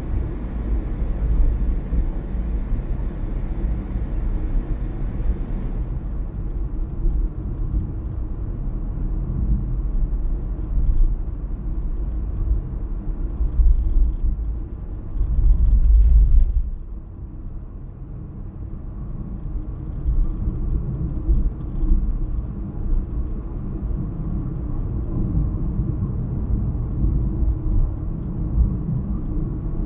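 Steady low rumble of road and engine noise from a car being driven. It swells briefly about fifteen seconds in, then drops for a moment before settling back.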